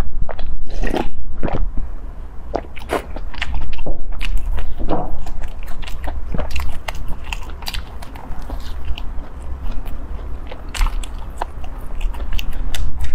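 Close-miked eating sounds: biting and chewing a bread bun, with many short moist clicks and crackles from the mouth, over a steady low hum.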